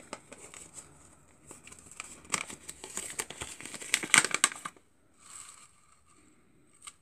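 Paper seed packet crinkling and rustling as it is handled, with a run of crackles that peaks about four seconds in and a softer rustle after.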